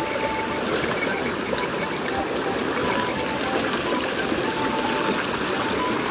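Shallow creek water running steadily over rocks in a small riffle.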